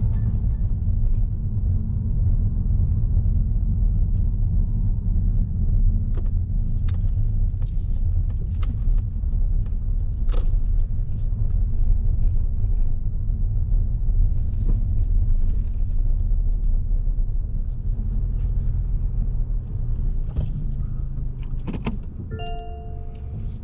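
A car being driven: a steady low road and engine rumble with a few faint clicks over it.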